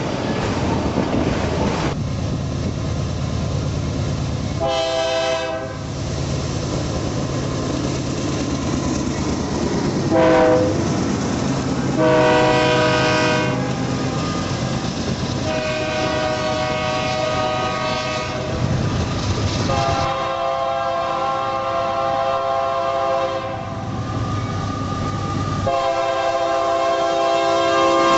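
Diesel freight locomotive's air horn sounding a chord of several notes in a series of blasts: two short ones, a medium one, then three long ones, the last still sounding at the end. A steady rumble of the moving train runs under it throughout.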